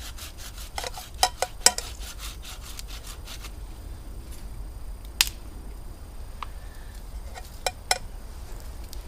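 Something being cut with quick back-and-forth strokes, about four a second, stopping a little over three seconds in, with a few sharp clicks and knocks scattered through.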